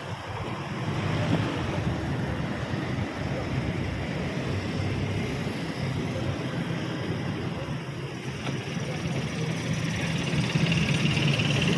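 Motor vehicle engine running, mixed with wind buffeting the microphone; the low engine hum gets stronger near the end.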